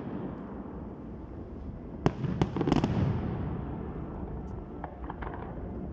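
Aerial fireworks bursting over a continuous rumble: one sharp bang about two seconds in, then a quick cluster of crackling reports, and a few fainter pops near the end.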